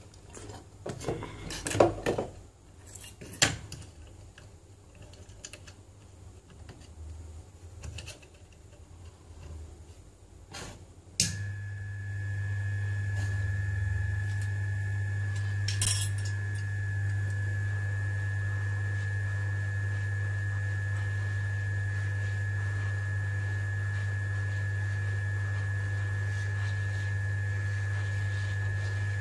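Light metallic clicks and knocks as an iPhone logic board is handled and clamped into a metal board holder. About eleven seconds in, a hot air rework station switches on with a click and runs steadily, a low hum with a high, even whine above it.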